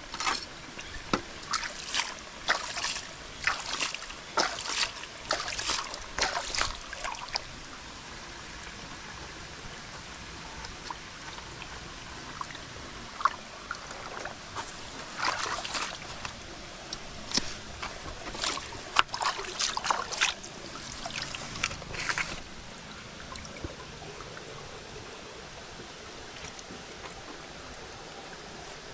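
Shallow stream trickling steadily, broken by bouts of sharp splashes and knocks as hands work a split bamboo length in the water, over the first seven seconds or so and again from about thirteen to twenty-two seconds in.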